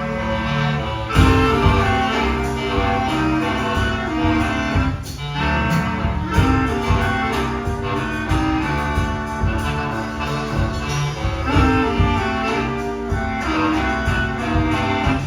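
An ensemble of bass clarinets with a drum kit playing a heavy metal piece live, the low reeds holding dense sustained and repeated notes under drum hits.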